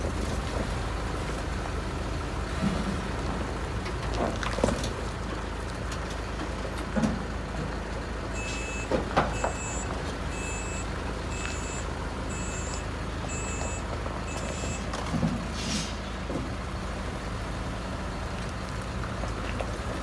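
Heavy diesel truck engine running steadily under a few knocks and clunks, with a reversing alarm giving about seven beeps a second apart in the middle. Just after the beeps, a short sharp hiss of the air brakes.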